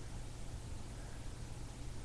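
Steady hiss with a low hum underneath, the background noise of a webcam microphone; no clicks or other distinct sounds.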